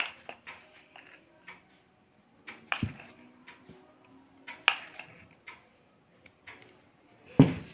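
A spoon clicking and tapping against a glass jar and a drinking glass while scooping powdered sugar, light scattered ticks with a few sharper knocks, the loudest near the end.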